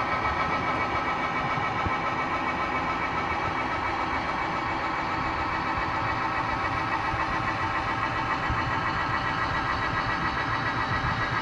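12-volt geared DC motor turning a worm screw that lowers an automatic chicken-coop door, running with a steady whine. The door is closing because its light sensor reads darkness.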